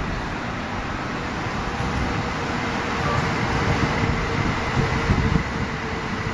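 CRH high-speed electric train running along a station platform: a steady rumble and hiss of the train in motion, with a faint steady whine, growing a little louder a few seconds in.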